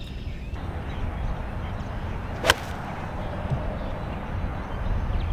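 One sharp crack of a golf iron (an 8-iron) striking the ball off the tee, about two and a half seconds in, over a steady low rumble. The shot is struck out of the toe of the club.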